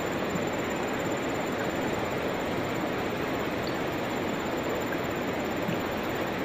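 Steady rush of river water flowing over rapids.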